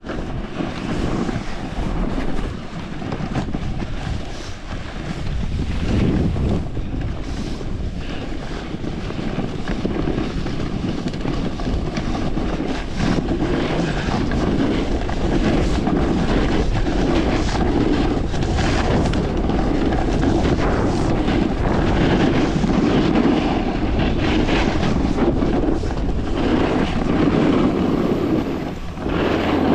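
Wind rushing over an action camera's microphone while a snowboard slides and scrapes down a packed, chopped-up piste: a continuous rushing rumble broken by frequent short scrapes of the board's edges on the snow.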